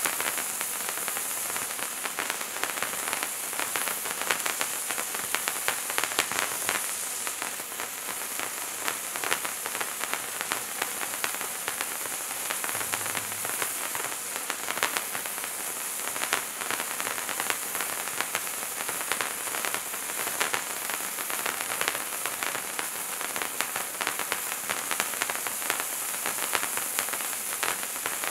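A Bright Star 'Wizards Wands' hand-held fountain firework burning steadily: a continuous spark-jet hiss, peppered with many small, quick crackles from the sparks.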